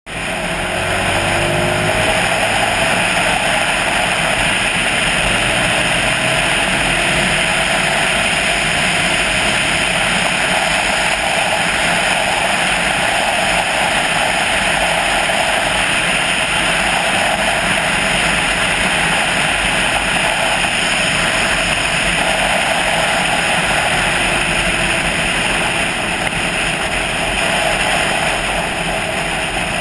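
A vehicle driving at speed along a highway, heard mostly as a steady rush of wind and tyre noise on a low front-mounted action camera. A faint engine note rises in pitch during the first few seconds as it accelerates.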